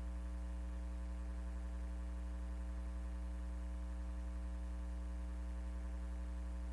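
Steady low electrical hum with a row of higher overtones and nothing else, unchanging throughout: mains hum in the recording chain with no programme sound.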